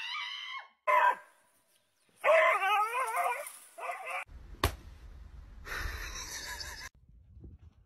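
Animal calls: a drawn-out wavering cry, a short cry about a second in, then a louder, longer wavering call. After that comes a single sharp click and a stretch of hiss.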